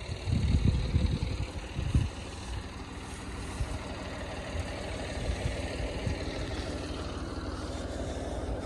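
Tractor engine running steadily at a constant speed, with some uneven low rumbling over the microphone in the first couple of seconds.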